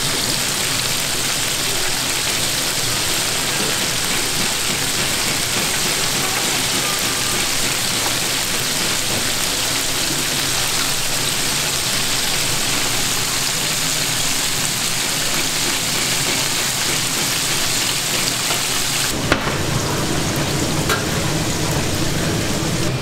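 Battered, galbi-marinated pork pieces deep-frying in a tray of hot oil, with a steady, dense sizzle and crackle of bubbling fat. About 19 seconds in, the sound changes abruptly to a duller sizzle with more low background noise.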